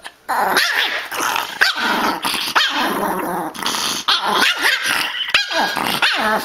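A Pomeranian growling and barking in a long, wavering run of vocal noise, with a few short breaks in the second half.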